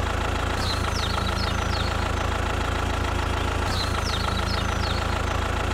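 Engine idling steadily with an even low hum. Short high chirps come in two brief groups over it.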